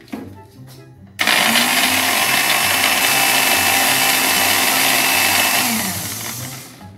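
Electric countertop blender switched on about a second in, its motor running at one steady speed for several seconds, then switched off and winding down with a falling hum near the end.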